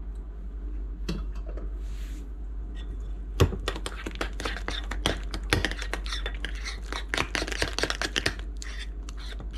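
Metal spoon stirring whipped topping in a glass bowl, clinking and scraping against the glass in quick, uneven strokes. It starts about three and a half seconds in with one sharp clink and runs on until near the end.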